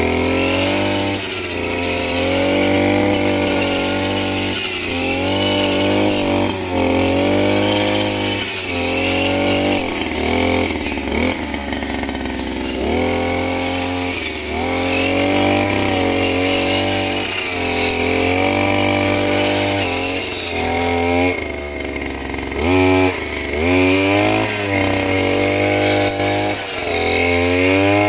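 Two-stroke brush cutter fitted with a 40-tooth circular saw blade, its engine revving up and dropping back over and over as the blade cuts.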